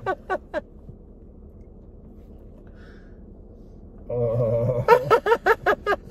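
A man laughing in quick rhythmic bursts that die away within the first half-second. After a quiet pause, about four seconds in, a man lets out a drawn-out, low groaning "oh", and another burst of laughter follows near the end.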